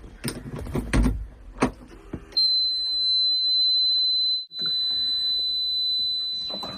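A few knocks, then a steady high-pitched tone held for about four seconds, briefly broken in the middle.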